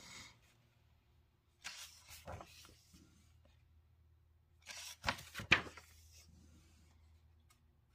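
Pages of a paperback coloring book turned by hand: two papery rustles, one about two seconds in and a louder one about five seconds in with a sharp snap in it.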